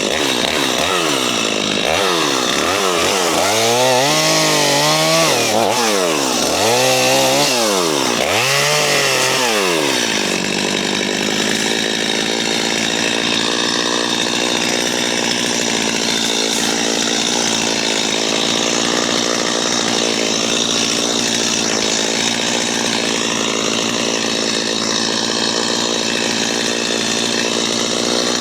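JCB 55Z mini excavator's engine and hydraulics working under load: its pitch rises and falls repeatedly for about the first ten seconds as the machine works, then holds steady.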